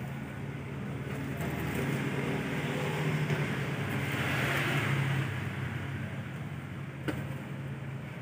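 Steady low hum under a background hiss that swells a little in the middle, with a single sharp click about seven seconds in.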